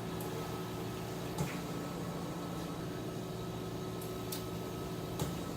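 Steady background hum with a few faint clicks scattered through it.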